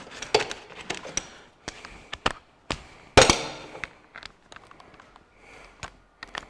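Scattered clicks, clinks and clunks of hand tools being picked up and handled, with one louder knock about three seconds in.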